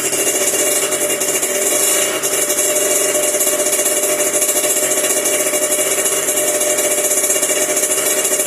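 Yamaha RD125LC's single-cylinder two-stroke engine running steadily on its first start after a top-end rebuild with a fresh +0.50 mm bore, piston and rings. Its pitch holds level, with no revving.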